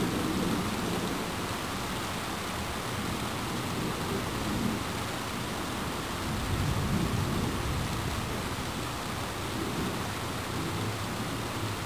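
Steady rain with low thunder rumbling, swelling a few times.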